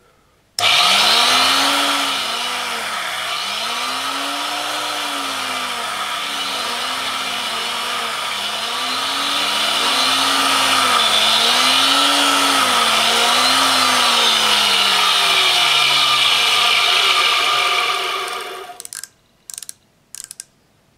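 Tool and cutter grinder running, its 800-grit wheel grinding a carbide rod blank to size, with a hum that rises and falls in repeated swells every second or two. It starts about half a second in and stops near the end, followed by a few light clicks.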